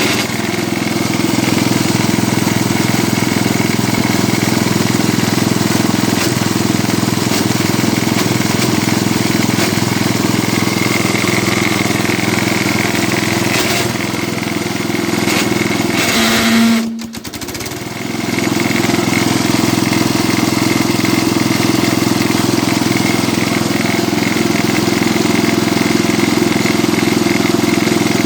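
Cub Cadet 86 garden tractor engine running steadily. A little past halfway a brief odd burst with a hum breaks in, the sound dips for about a second, then the steady running resumes. This is an intermittent strange noise that the owner cannot yet place, taking it for something coming loose.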